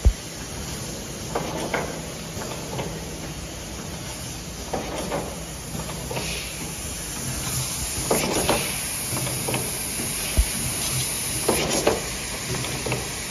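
Six-colour pad printing machine with conveyor running through its cycle: a steady hiss and hum, with a pair of short bursts of air hiss and mechanical noise repeating about every three seconds.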